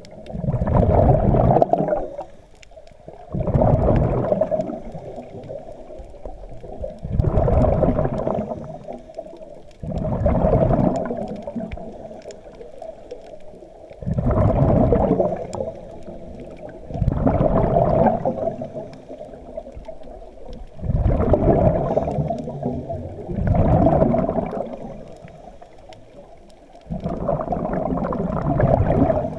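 Scuba diver breathing underwater through a regulator: a burst of exhaled bubbles gurgles and rumbles about every three seconds, with quieter gaps between breaths.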